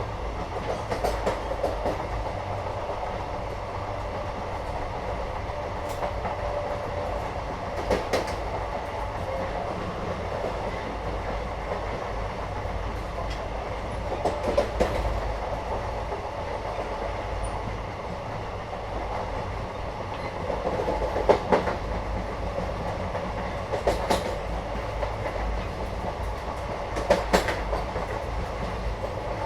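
Inside a moving Indian passenger train: the carriage's steady low rumble, with clusters of clacks from the wheels passing over rail joints every few seconds.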